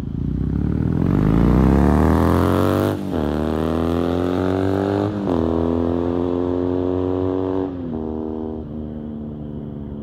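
2014 Triumph Thruxton 900's parallel-twin engine through a British Customs aftermarket exhaust, revving hard up through the gears. The pitch climbs to a peak about three seconds in, then drops with an upshift there and again at about five and eight seconds, the sound slowly fading after the first shift.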